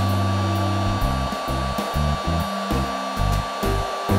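Marvy embossing heat gun blowing hot air steadily, with a fan whine, as it melts the end of a fly line so the doubled strands fuse into a welded loop. Background music with low notes plays underneath.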